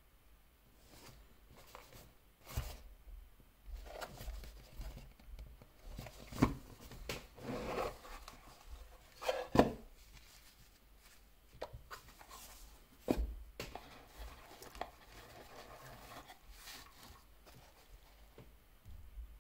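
Unboxing handling sounds: a watch box and its packaging are opened and handled, with scattered knocks and taps and soft rustling as a cleaning cloth and a foam watch pillow are taken out.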